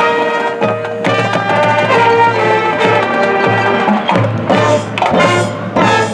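Marching band playing: brass sustain a chord, then drums and front-ensemble percussion come in with a driving rhythm under moving brass chords.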